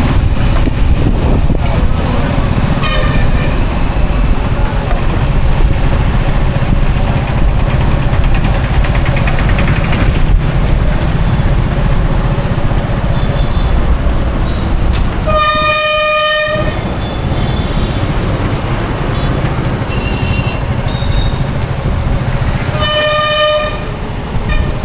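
Steady rumble of highway traffic, with a loud vehicle horn sounding for about a second roughly two-thirds of the way in and again near the end; a fainter short honk comes early on.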